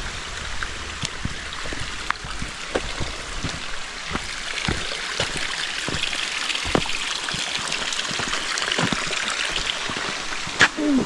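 Small creek trickling and splashing over rocks, a steady running-water sound with scattered drips, a little stronger in the middle. A short falling-pitched sound comes just before the end.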